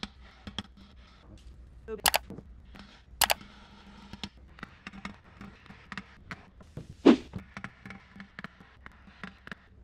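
Scattered clicks and knocks of metal as the heat exchanger housing from a Yanmar 4JH3E marine diesel is handled and turned to work its stuck tube stack out. Three sharper knocks stand out, about two, three and seven seconds in, the last the loudest.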